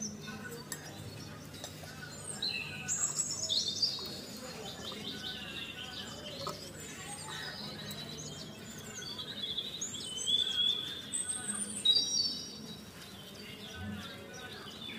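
Small birds chirping and trilling with many short, high calls. They are loudest about three to four seconds in, and again around ten to twelve seconds.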